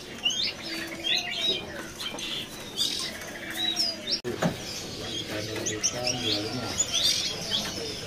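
Many caged songbirds chirping at once: short, high chirps and twitters from several birds, overlapping and irregular.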